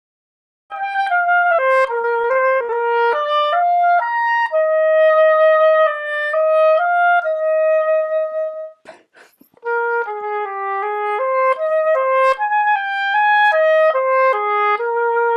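Solo oboe playing a melodic etude passage, one note at a time, with a long held note in the middle. It begins after a moment of silence and has a brief break about nine seconds in.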